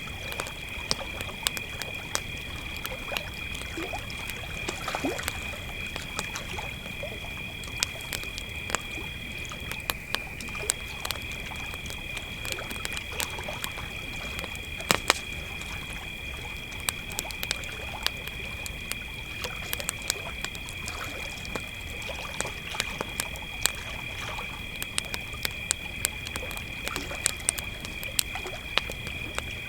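Crickets trilling steadily at two pitches, the higher one stopping briefly about ten seconds in, over a campfire crackling and popping with frequent sharp snaps.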